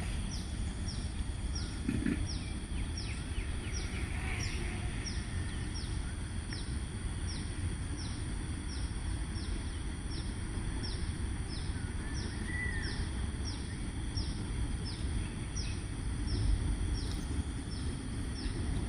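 Outdoor ambience: a short, high, falling chirp repeating steadily about once every 0.7 seconds over a steady high whine and a low rumble, with one brief separate call about twelve seconds in.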